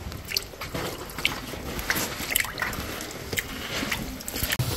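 Feet wading through cold, shallow water over a gravel bed, with irregular splashes and sloshes.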